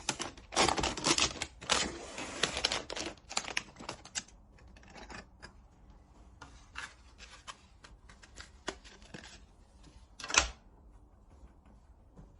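Hands handling PC parts and their packaging: dense rustling and clicking for the first three seconds, then sparse small clicks, and one short, louder rustle about ten seconds in.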